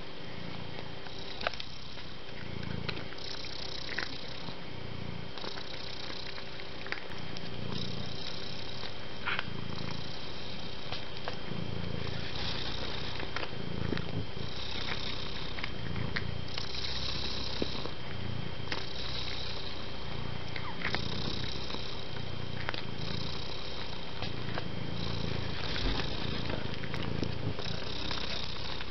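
A domestic cat purring continuously, the purr swelling and changing in a steady breathing rhythm, with a few light clicks.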